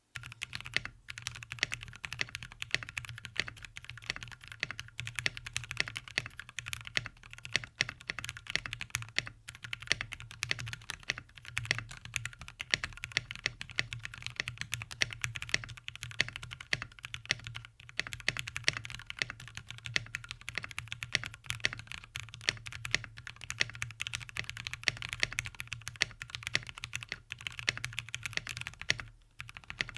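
Fast continuous typing on a mechanical keyboard fitted with Gateron Cap Yellow V2 factory-lubed linear switches, in an aluminium case with PBT keycaps. The keystrokes are quiet and on the thocky side, with some scratchiness. There is a brief lull near the middle, and the typing stops just before the end.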